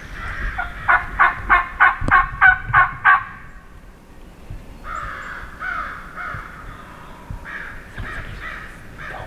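Turkey yelping: a loud run of about eight yelps, roughly four a second, each with a drop in pitch. It is followed by quieter turkey calls in two stretches from about five seconds in.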